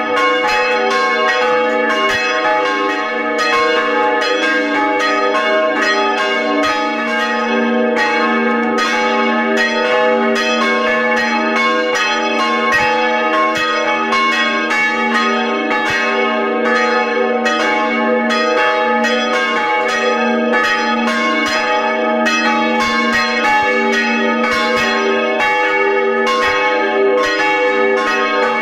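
Church bell rung by hand with a rope, ringing steadily with strokes following one another in quick succession, heard up close inside the wooden belfry.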